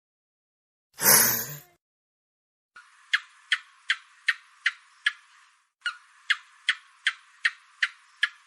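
A short, loud, noisy burst, then two runs of sharp, clicking gecko chirps, each about eight chirps at close to three a second, with a brief pause between the runs.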